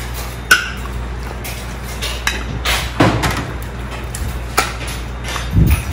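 Metal ladle clinking and scraping against a large soup pot and ceramic bowls as soup is served, a few sharp clinks with the loudest about half a second in, over a steady low hum.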